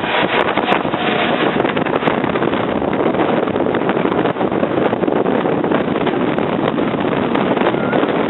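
Storm-force wind from the remnants of a hurricane buffeting the microphone: a loud, steady rushing noise without let-up.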